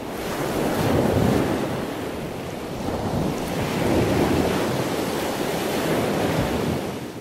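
Ocean surf: a steady rush of breaking waves that swells about a second in and again about four seconds in, then fades out near the end.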